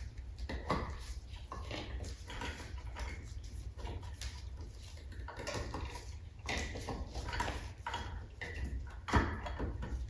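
Handling noise as chandelier wires are pulled by gloved hands through a metal nipple and the metal fittings are handled: irregular small clicks, clinks and rustles, with one sharper knock about nine seconds in. A low steady hum runs underneath.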